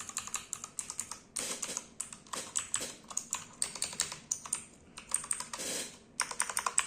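Typing test on a Fantech Atom96 mechanical keyboard with clicky blue switches: rapid, irregular keystrokes, each a sharp click.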